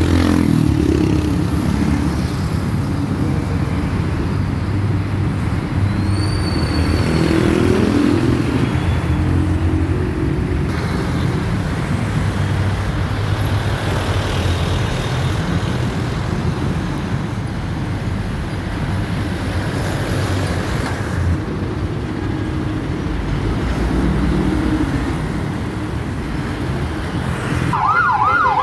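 Busy street traffic: cars, motorcycles and trucks passing with a steady engine rumble and tyre noise, and a brief high squeal about six seconds in. Near the end an emergency vehicle's siren starts up with a fast yelping wail.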